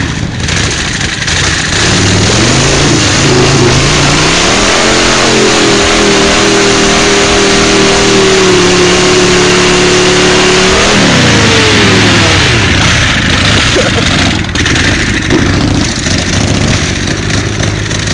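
Home-built Harley-Davidson chopper's V-twin revved hard in a burnout, its rear tyre spinning on the pavement. The revs climb a couple of seconds in, hold high for about six seconds, then drop away about two-thirds of the way through.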